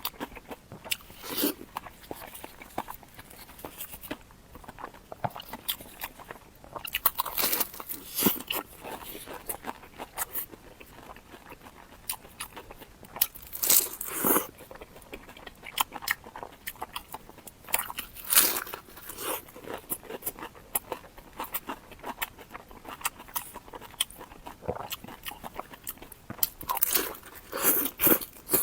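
Close-miked eating: biting into and chewing crunchy food, in irregular crunches with a few louder bites.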